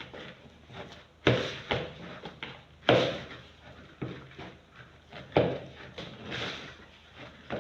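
Pie dough being worked by hand in a mixing bowl: irregular knocks and thumps, a second or two apart, as the dough is pressed and turned against the bowl.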